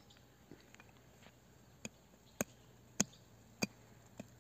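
Hatchet chopping at a thin branch held upright against the snow, five sharp strikes about every 0.6 seconds from about two seconds in, the middle three the loudest.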